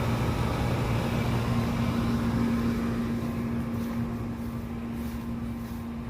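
Steady low mechanical rumble with a constant hum, easing off slowly over the last few seconds.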